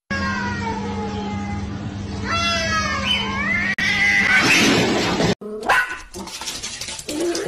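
Cats yowling at each other in long, wavering calls that slide up and down in pitch, over a low steady hum. The yowling cuts off about five seconds in, followed by a few sharp knocks and clicks.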